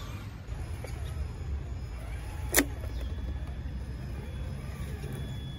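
Traxxas TRX-6 6x6 RC crawler's electric motor and drivetrain running as it crawls over grass and rock, with a low rumble throughout. One sharp click comes about two and a half seconds in.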